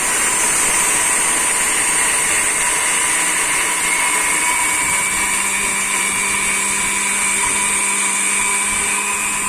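Electric spice grinder running without pause as it grinds whole black peppercorns coarsely; a steady higher whine joins the motor noise about halfway through.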